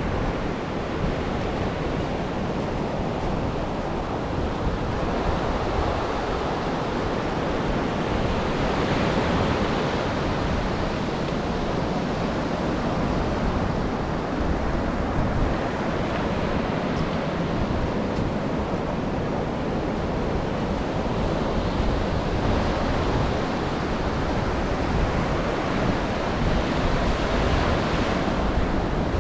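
Ocean surf washing onto a beach, its hiss swelling as waves break every six or seven seconds, with wind rumbling on the microphone underneath.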